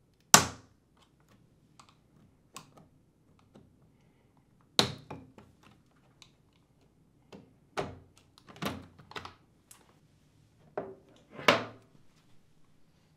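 Sharp plastic knocks and clicks as a dishwasher's touchpad control panel is pried free of its plastic retaining tabs with a flat-head screwdriver and handled. The loudest knocks come about half a second in and near five seconds, with a quicker cluster of clicks later on.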